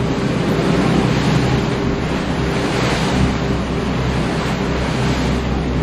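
A motor yacht's hull running through choppy water into a headwind: a steady rush of waves and bow spray with wind noise, over the even drone of the boat's engines.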